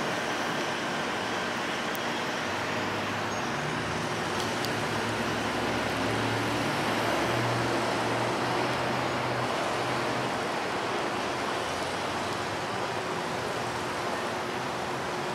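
Steady road traffic noise. A vehicle's low engine hum swells over the middle seconds and then fades.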